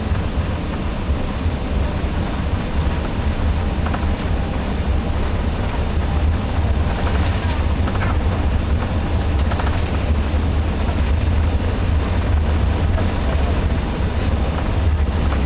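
Airbus A380 on its takeoff roll, heard from inside the cabin: a loud, steady low rumble of the engines at takeoff thrust and the wheels on the runway.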